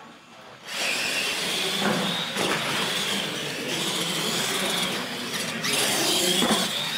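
Electric radio-controlled monster trucks take off about a second in and race across a concrete floor, their motors and gears whining, the whine rising and dipping with the throttle over a rush of tyre and drivetrain noise.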